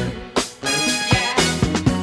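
Upbeat music with drum hits on a steady beat and sustained instrumental notes.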